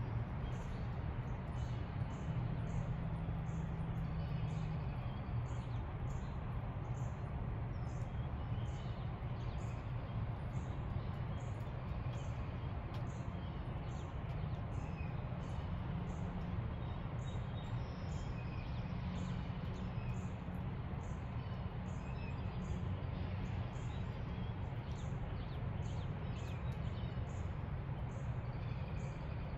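Birds chirping faintly at dawn, with a thin high note repeating about once a second, over a steady low rumble.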